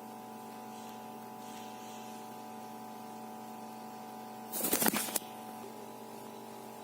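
A steady electrical hum of several held tones, broken once about two-thirds of the way through by a loud, harsh noise lasting under a second.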